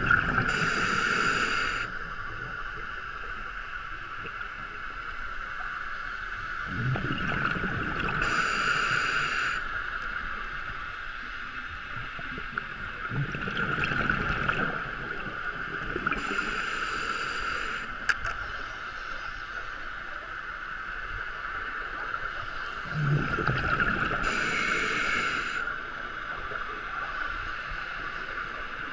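Scuba diver breathing through a regulator underwater: a hiss on each breath and a gurgling rush of exhaled bubbles, repeating about every eight seconds, over a steady high hum.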